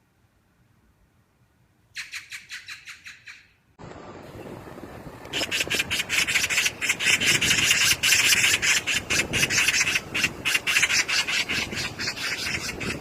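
Magpie chattering: a short, rapid rattle of harsh calls about two seconds in. After a change of recording, a longer and louder run of the same rattling chatter starts a few seconds later and carries on until near the end.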